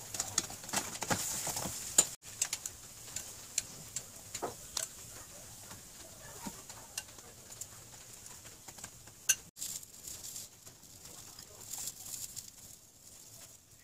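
A metal spoon scraping and tapping as it spreads tomato sauce over a pan-cooked pizza base, with scattered light clicks over a faint steady hiss. The sound cuts out abruptly twice, about two seconds in and about nine and a half seconds in.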